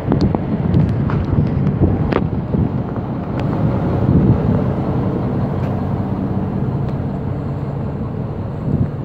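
Truck engine idling steadily, a low hum, with wind buffeting the microphone and a few light clicks.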